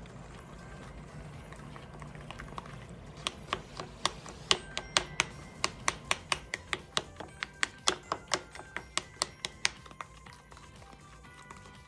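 Spoon clinking against a glass bowl while stirring brown sugar into thick honey and molasses, a quick run of sharp clicks about three or four a second starting a few seconds in and stopping near the end.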